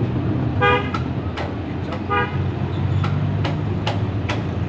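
Vehicle horn giving two short toots, one about half a second in and one about two seconds in, over a steady low engine rumble and scattered clicks.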